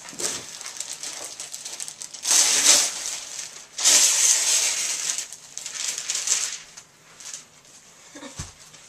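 Gift wrapping paper and tissue paper being torn and crumpled off a present. There is a short burst of tearing about two seconds in and a longer one from about four seconds, with lighter rustling between and after.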